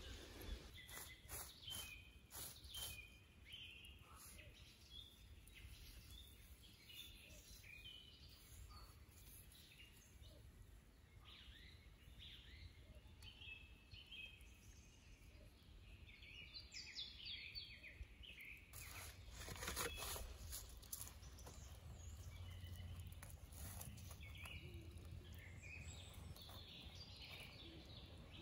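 Quiet woodland ambience: small birds chirping and calling on and off, with brief rustling and handling noises, the loudest cluster about twenty seconds in.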